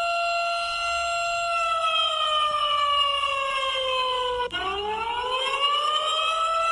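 Siren sounding the alarm for an earthquake drill. It holds a steady wail, slides down in pitch over about three seconds, cuts out for an instant about halfway through, then climbs back up to its steady pitch.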